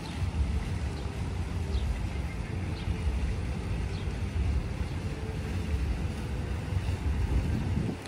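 Wind buffeting the microphone: a low, uneven rumble, with a few faint high chirps in the first half.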